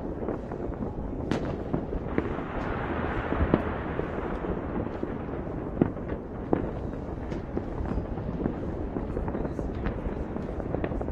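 Fireworks and firecrackers going off all over a city: a constant rumble of many overlapping bangs and pops, with a few sharper bangs standing out. A spell of hiss rises over it a couple of seconds in and fades about two seconds later.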